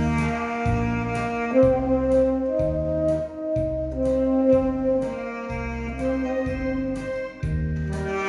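Tenor saxophone playing a melody of long held notes over a backing track with a steady bass beat.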